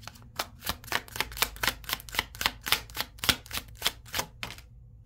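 A deck of tarot cards being shuffled by hand: a quick, irregular run of light flicking and slapping clicks, about five or six a second, that stops shortly before the end.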